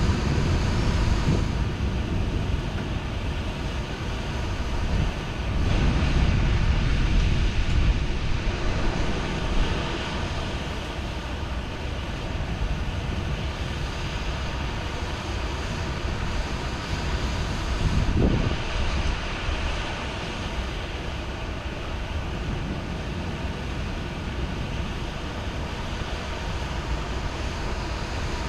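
Steady heavy rain with low rolling thunder that swells near the start and again about six seconds in, and a short, sharper low thump about two-thirds of the way through.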